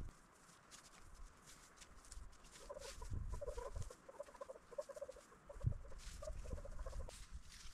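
Dry leaves and twigs crackling and rustling as the spruce boughs are worked, with a couple of dull thumps. From under three seconds in to near the end, a bird gives a rapid run of short, repeated calls.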